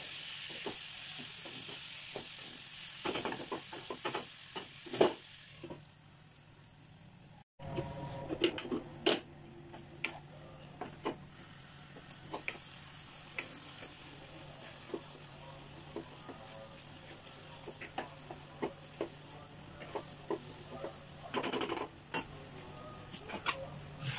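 A wooden spatula stirring and scraping an onion-tomato masala frying in a nonstick pan, with sizzling and frequent sharp taps of the spatula against the pan. The sound breaks off briefly about a third of the way in, then the stirring and taps go on.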